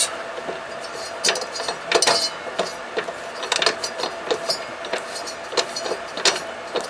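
Irregular clicks and clunks from an old riding-mower transmission and its chain drive as reverse gear is tried, over a faint steady hum.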